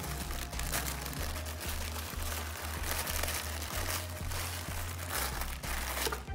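Thin paper crinkling and rustling as it is folded and rolled around a tortilla wrap by hand, over background music with a repeating low bass pattern.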